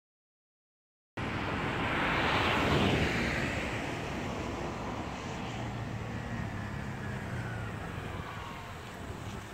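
Silence for about a second, then outdoor traffic noise starts suddenly: a vehicle passes with a rush that falls in pitch, loudest two to three seconds in. A sport motorcycle's engine follows with a low steady hum as the bike rides up.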